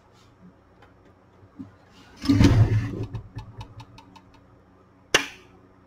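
A stereo receiver's metal chassis being tipped up on its side on a wooden bench: a scraping thud about two seconds in, followed by a run of quick light ticks and one sharp knock near the end.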